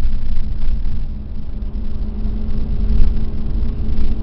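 Mercedes-Benz W126 sedan cruising at a steady speed, heard from inside the cabin: a constant engine drone with a low rumble of road noise underneath.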